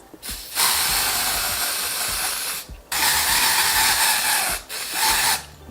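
Spray can hissing in two long bursts of about two seconds each, then a shorter burst near the end.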